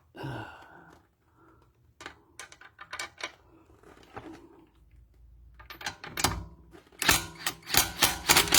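Scattered clicks and knocks of a bolt and socket being handled, then near the end a quick run of sharp rattling strokes as a KIMO 20V cordless impact wrench hammers a lug bolt back in, in short bursts.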